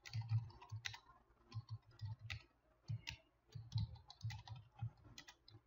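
Typing on a computer keyboard: an irregular run of keystrokes, each a click with a dull thump, in quick clusters with short pauses between them.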